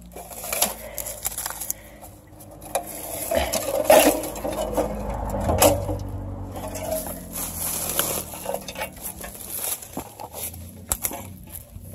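Dry twigs, branches and dead leaves rustling, crackling and snapping as someone pushes through dense brush and steps on leaf litter, with sharper snaps about four and six seconds in.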